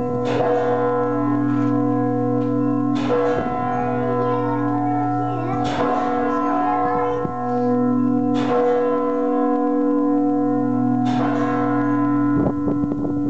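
Hallgrímskirkja's church bells tolling noon, heard up close from the tower. A big bell is struck about every two and a half to three seconds, and each stroke rings on over a deep hum. Near the end, quicker strokes crowd in.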